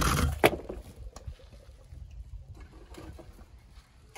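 Small die-cast toy bus rolling down a turf- and felt-covered ramp, a short rumble that ends in a sharp knock about half a second in, followed by faint light clatter.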